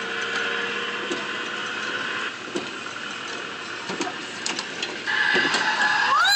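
Coin-operated kiddie ride running with its electronic game sounds. A steady electronic tone stops about two seconds in, scattered clicks follow, and a new tone starts about five seconds in and sweeps upward near the end.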